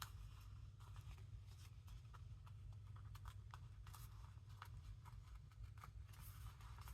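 Near silence: a low steady hum with faint, scattered small clicks and rustles of paper being handled.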